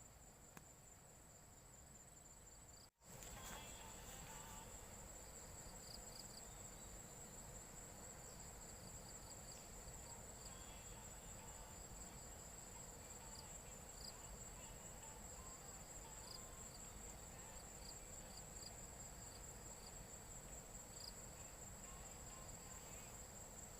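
Steady, high-pitched insect trill with scattered short chirps. The sound drops out for a moment about three seconds in.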